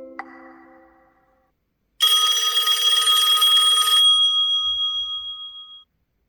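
Smartphone ringtone imitating an old telephone bell: one loud, fast-trilling ring of about two seconds that then rings out. Before it, the last notes of a mallet-like ringtone fade away.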